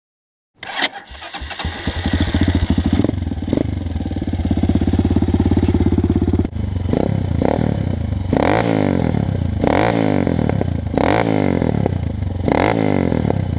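Orion AGB 30 250cc dirt bike engine starting up about half a second in and settling into an idle, then revved in about six short throttle blips that rise and fall in pitch through the second half.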